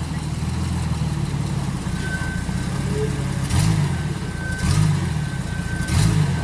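Off-road 4x4's engine running at low speed on a trail, with three short throttle blips about a second apart in the second half. A thin steady high whine runs underneath.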